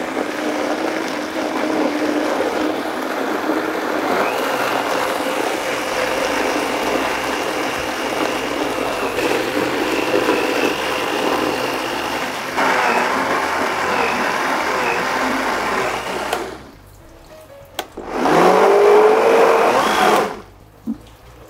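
Vitamix blender running on basil in olive oil and water to make genovese pesto, with a steady motor whine. As the basil thickens the mix, the blades turn with growing difficulty. About three-quarters of the way through it stops, then spins back up with a rising whine for about two seconds before stopping again near the end.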